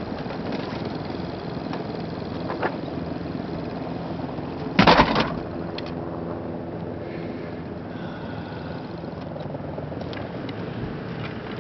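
Steady low engine hum, with one loud, sudden noise lasting about half a second some five seconds in.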